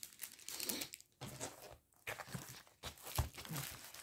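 Soft, intermittent rustling and crinkling of a diamond painting kit's packaging being handled and opened, with a dull knock about three seconds in.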